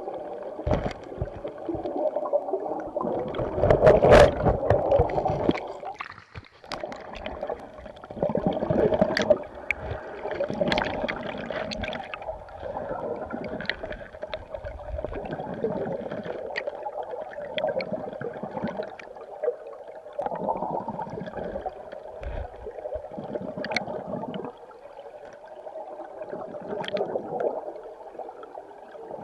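River current heard underwater through a submerged camera: a muffled gurgling wash that swells and fades, with scattered sharp clicks. The loudest surge is about four seconds in.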